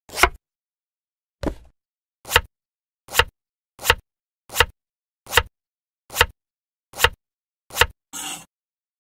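Kitchen knife cutting watermelon on a wooden cutting board: about ten short cutting strokes at a steady pace, a little more than one a second. A brief scraping sound follows near the end.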